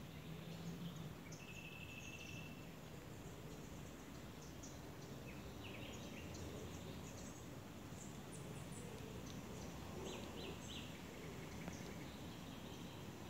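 Faint outdoor ambience: small birds chirping and calling briefly here and there over a steady low background noise.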